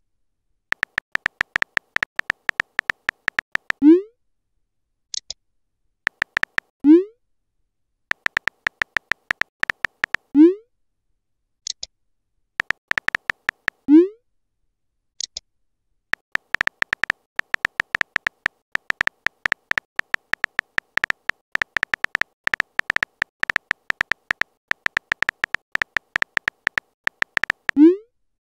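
Simulated phone-keyboard tap clicks in quick runs as messages are typed, each run ending in a short rising pop as a message is sent, about five times; a few brief high blips fall between the runs.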